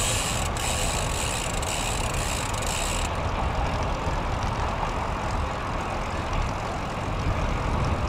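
Wind buffeting a windscreen-covered microphone while riding a road bike in gusty wind: a steady, fluctuating low rumble with a rushing haze over it. A high, even hiss in the first three seconds cuts off suddenly.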